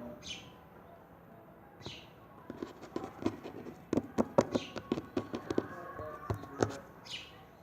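Slime being squeezed and kneaded by hand, giving a quick run of sharp wet clicks and pops from about two and a half seconds in until near the end. A bird chirps a few times.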